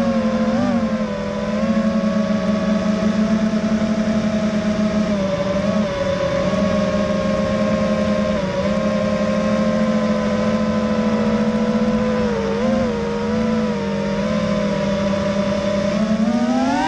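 FPV racing quadcopter's brushless motors whining steadily as it cruises, with brief small dips in pitch as the throttle eases, and a rising whine near the end as the throttle is punched.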